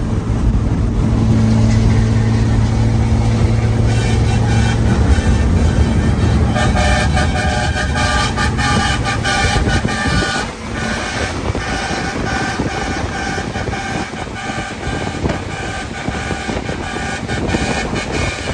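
Truck air horns blowing in a series of blasts over engine and road noise. A low steady drone dominates the first few seconds; from about six seconds in, several horn tones sound together, on and off.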